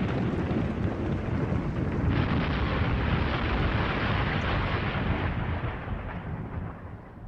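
Thunder rumbling low and heavy, with a sharper crack breaking in about two seconds in, then rolling away and fading out near the end.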